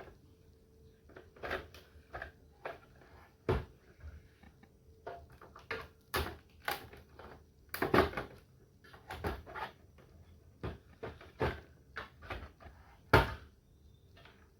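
Irregular plastic clicks, snaps and knocks as the front panel of an HP LaserJet 1020 printer is unlatched and pried off, with louder knocks about three and a half, eight and thirteen seconds in.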